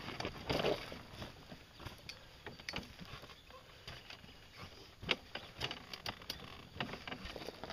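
Scattered footsteps, rustling and light knocks as a rider walks up to a parked ATV and climbs onto it, with one sharper clack about five seconds in. The engine is not running.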